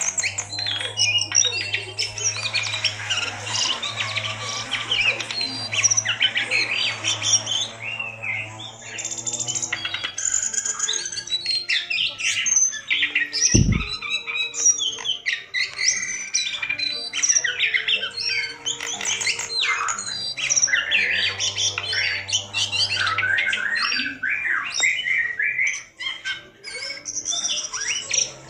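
Caged jongkangan songbird singing on and on in fast, varied chattering and whistled phrases. A low steady hum and other tones sit underneath in places, and there is a single low thump about halfway through.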